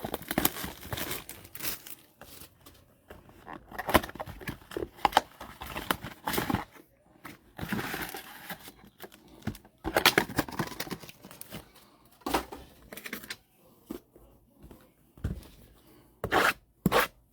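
Plastic wrapping on trading-card boxes crinkling and being torn in irregular bursts as it is handled and pulled off.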